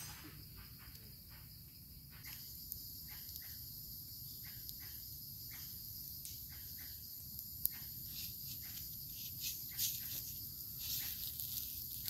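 Steady high-pitched insect chorus, growing a little louder about two seconds in, with a scattering of light clicks and scrapes that come more often toward the end.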